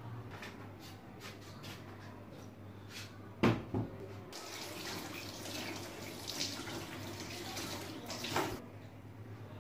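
Faint kitchen handling sounds over a low steady hum: scattered light clicks, two sharper knocks about three and a half seconds in, then a steady hiss for about four seconds.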